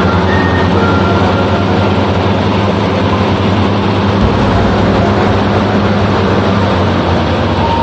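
Rice combine harvester running steadily with a loud engine hum; a deeper rumble joins about four seconds in.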